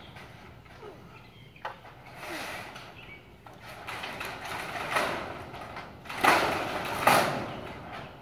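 Corrugated steel carport side sheet being shifted and pressed against the metal frame: a few scattered scrapes and rattles of sheet metal, the two loudest about six and seven seconds in.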